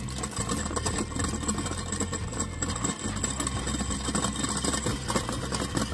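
An engine running steadily, with a dense rattle over its low hum.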